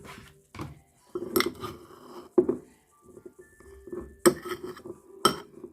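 A spoon scooping shea butter, scraping and clinking against its container, with several sharp knocks.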